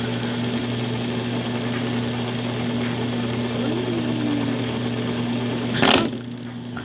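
A steady low mechanical hum that does not change in pitch, with a sharp knock or handling bump about six seconds in.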